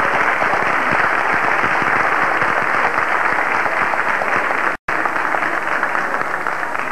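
Large seated audience applauding steadily, many hands clapping together. A split-second gap cuts the sound about two-thirds of the way through.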